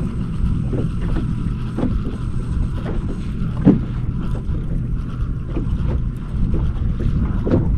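Wind rumbling on the microphone aboard a small fishing boat, with a faint steady low hum and a handful of short, light knocks against the boat.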